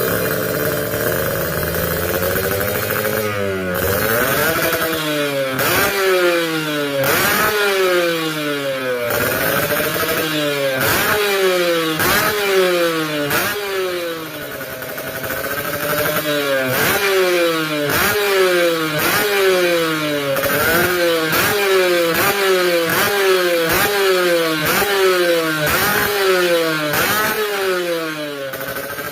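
Kawasaki Ninja 150 R/RR two-stroke single with an aftermarket racing exhaust, revved in quick repeated throttle blips, the pitch shooting up and falling away about once a second. It runs more steadily for the first few seconds, and there is a short lull near the middle.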